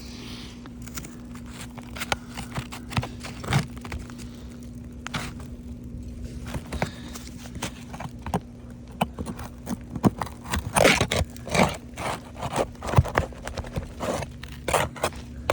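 Scraping, clicking and cracking of hand work under brittle roof shingles, loosening the seal to get at the nail heads. Scattered at first, then a busy run of scrapes and cracks in the last five seconds.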